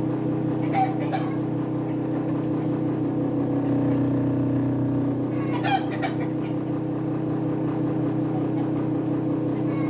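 Homemade dust collector blower running with a steady hum. A chicken calls briefly about a second in and again about six seconds in.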